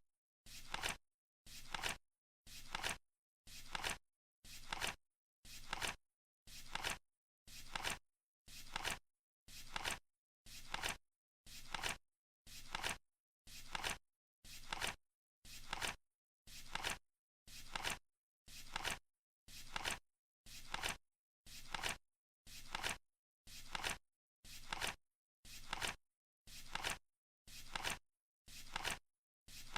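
Flip-clock countdown ticking once a second: a short, sharp tick-and-flap sound each second, with silence between.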